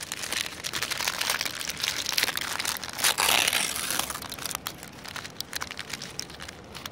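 Crinkly wrapper of freeze-dried ice cream being unwrapped by hand: rapid, irregular crackling and rustling, loudest about three seconds in and thinning out near the end.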